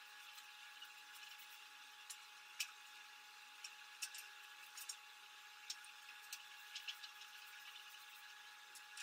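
Near silence with a steady faint hiss and hum, broken by scattered light clicks and taps of a hand sheet-metal brake and a thin painted steel sheet being handled; the sharpest tap comes about two and a half seconds in.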